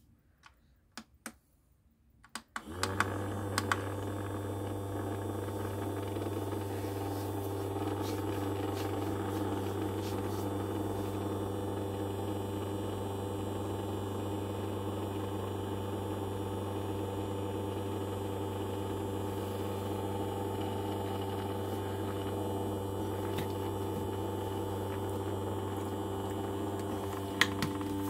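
A few clicks, then about three seconds in a small ultrasonic cleaner switches on and runs with a steady electric hum, its water tank of coins vibrating. A short click sounds near the end.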